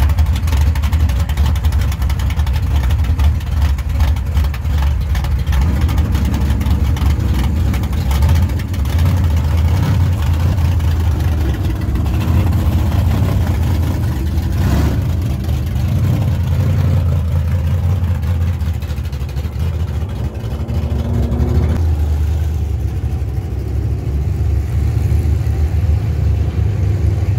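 Pure stock dirt-track race car's engine running loudly close by. About 22 seconds in, the sound turns duller.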